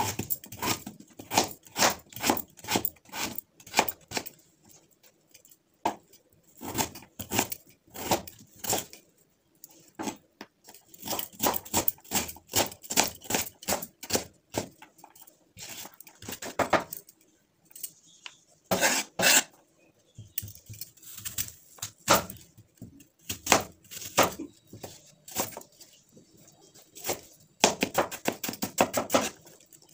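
Kitchen knife chopping on a wooden chopping board, dicing beetroot and then apple: runs of quick sharp taps, several a second, broken by short pauses.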